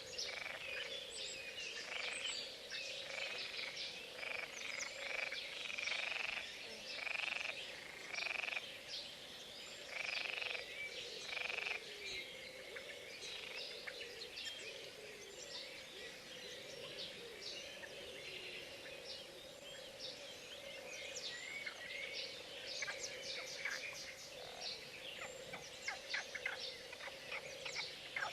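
Frogs croaking in a spring chorus: a run of loud croaks, about one a second, over the first dozen seconds above a steady background chorus, with birds chirping throughout.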